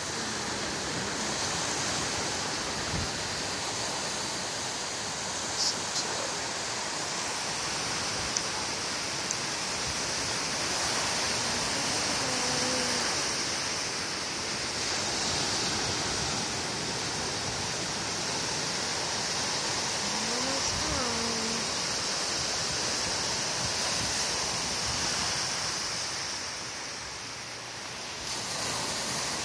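Ocean surf breaking and washing up the beach, a steady rushing hiss of waves.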